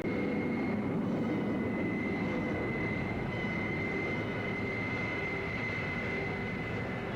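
SR-71 Blackbird's two Pratt & Whitney J58 jet engines running at high power as the aircraft accelerates away: steady rumbling jet noise with a high steady whine, easing slightly near the end.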